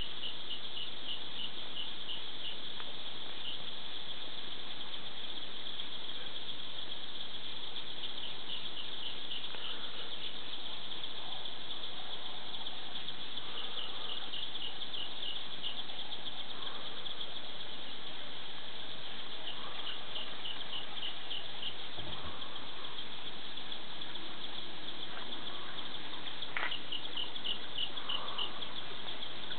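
A steady, high-pitched chorus of insects trilling without a break. Every few seconds one caller joins with a short burst of rapid chirps.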